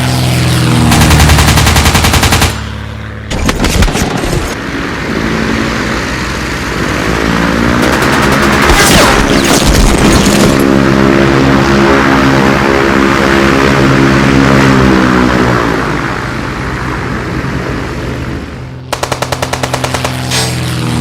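RC Corsair model warplane with a machine-gun effect: rapid bursts of machine-gun fire about a second in and again near the end, with the plane's engine running in between, swelling and shifting in pitch as it passes.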